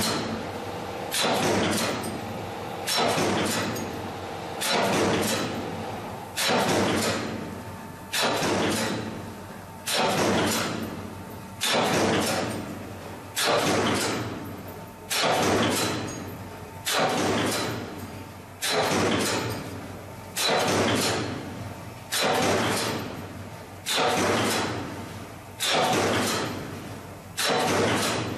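CNC punch machine punching holes in steel sheet, a sudden heavy stroke about every second and three-quarters, each one dying away before the next.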